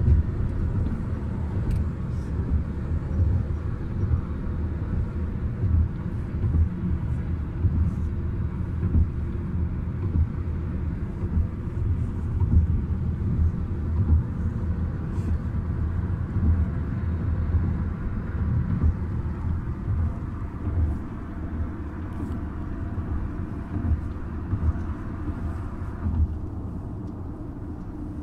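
Steady low road and engine rumble of a car driving at highway speed, heard from inside the cabin. A fainter hiss above the rumble thins out near the end.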